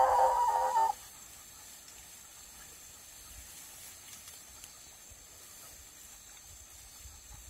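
A hunting hound gives one drawn-out bay lasting about a second at the start, then falls quiet, leaving only faint open-air hiss.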